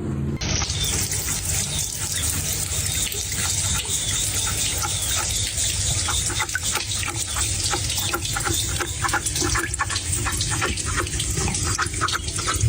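Water running steadily, with many small irregular splashes.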